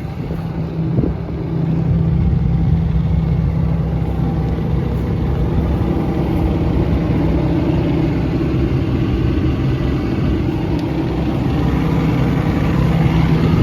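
Cummins diesel engine of an XCMG XE210CU excavator running with a steady, even drone.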